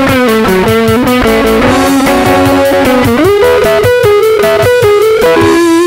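Gibson 335-S electric guitar played with rapidly picked notes, several a second, and a note bent upward about three seconds in.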